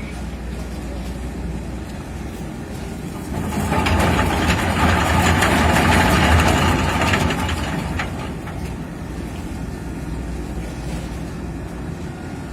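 An engine running steadily, with a loud rushing noise that swells for about four seconds in the middle and then dies away.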